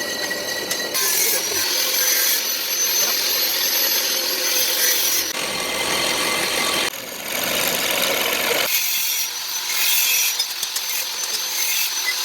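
Metalworking on a rusty iron plate: a harsh scraping, grinding noise from a tool working the metal, with a faint high whine, changing abruptly in character several times.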